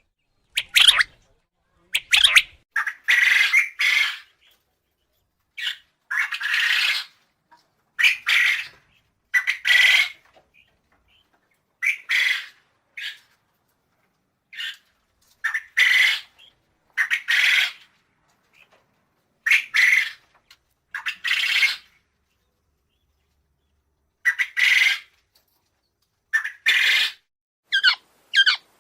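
Quail calling: short, harsh calls repeated in clusters of one to three, with pauses of a second or more between clusters.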